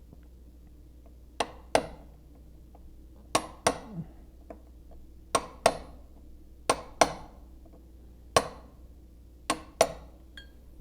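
Hammer striking a chisel to chop off lead that ran over the edge of a freshly poured joint: about eleven sharp metallic strikes with a brief ring, mostly in quick pairs every couple of seconds.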